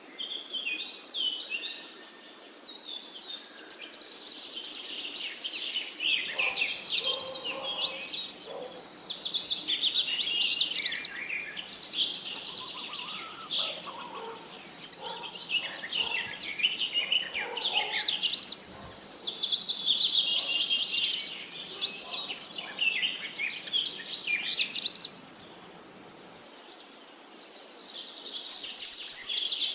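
Birdsong: a near-continuous run of rapid, high-pitched chirps and trills, phrase after phrase, with quick rising and falling sweeps.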